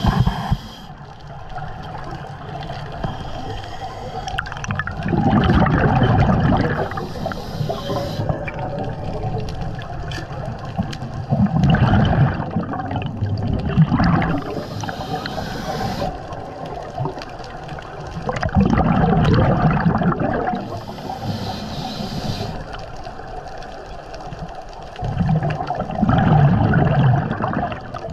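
Scuba diver breathing through a regulator underwater: a short hiss of inhalation, then a louder rush of exhaled bubbles, repeating about every seven seconds for four breaths.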